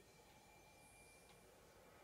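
Near silence: faint room tone with a thin, steady high tone.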